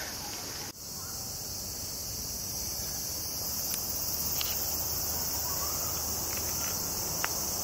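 Cicadas buzzing steadily in the trees, a high continuous drone, with a low rumble beneath it.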